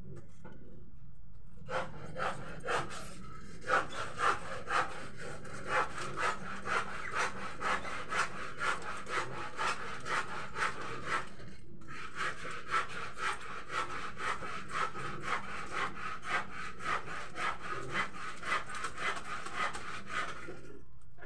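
Hair-cutting scissors snipping through hair in quick, steady strokes, several a second, with a short pause about halfway.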